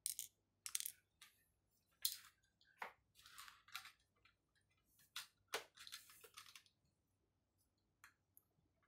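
Small plastic toy-building pieces clicking and scraping as they are fitted together by hand: a string of short, irregular clicks and brief rustles, thinning out in the last second or so.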